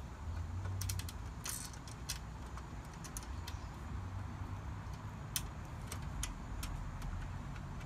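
Scattered light metallic clicks and clinks of small screws being picked from a plastic bag and threaded by hand into steel cabinet panels, one sharper click about five seconds in, over a low steady rumble.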